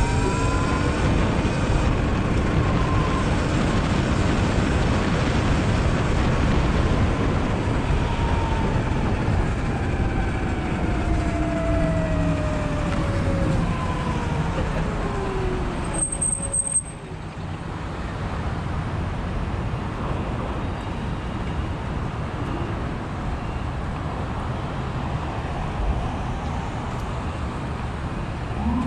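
Riding a Sur Ron electric dirt bike through city traffic: steady wind and road noise with a whine that falls slowly in pitch over the first half. About seventeen seconds in, the noise drops off suddenly to a quieter steady level.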